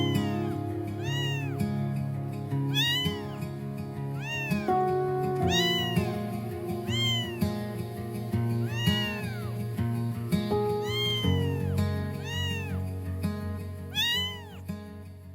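A cat meowing over and over, short rising-and-falling meows about once a second, over cheerful background music.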